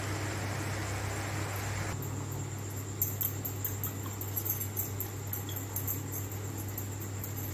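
Vegetable gravy reducing in a kadai with a steady sizzling hiss, which drops away abruptly about two seconds in. After that only a low hum and scattered faint, high ticks remain.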